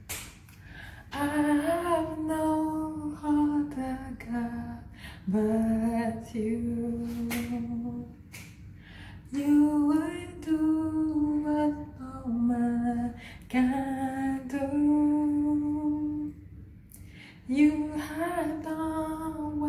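A woman singing a gospel melody unaccompanied, in long held notes with no clear words, in phrases of a few seconds separated by short breaths.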